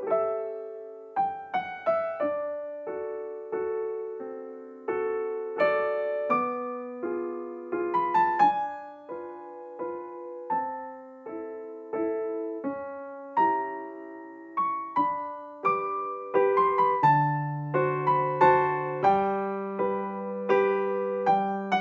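Background piano music: a slow melody of single struck notes, each fading away, joined by lower bass notes in the second half.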